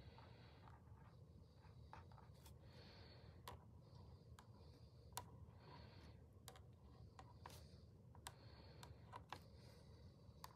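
Marker writing on a paper sheet: faint scratchy strokes as letters and numbers are traced, with scattered small clicks.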